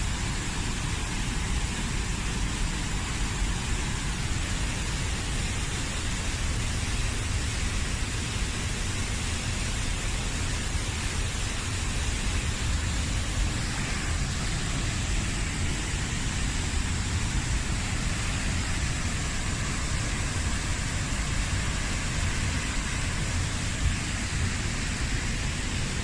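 Waterfall roaring steadily: an even, unbroken rush of falling water.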